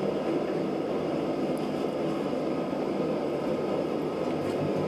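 Steady, even rushing noise of workshop machinery, with no hammer blows or clicks.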